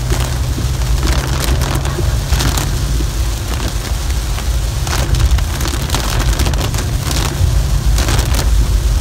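Heavy monsoon rain falling on a car's windshield and body, heard from inside the cabin as a steady hiss, over the constant low rumble of the car driving on a wet road. Brief louder hissing surges come several times at uneven intervals.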